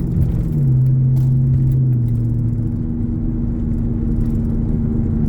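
Cabin noise of a moving Chrysler LX car: a steady hum over engine and road rumble, almost like a propeller-driven airplane far off, the sign of a suspected worn wheel hub bearing. A lower engine tone steps down in pitch about half a second in and fades out around two and a half seconds in.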